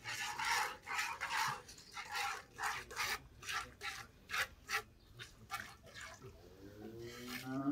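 Hand-milking into a steel pail: rhythmic hissing squirts of milk hitting the bucket, about two a second, quickening around the middle and then fading. Near the end a cow starts a low, rising moo.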